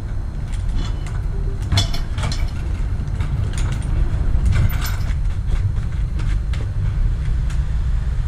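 Steady low rumble of wind on the microphone, with a few short clicks and scrapes about two seconds in and again around the middle.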